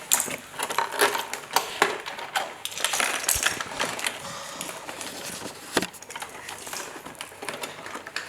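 Plastic packaging crinkling and rustling while small plastic toy parts click and clatter in irregular taps, with one sharper knock a little before six seconds in.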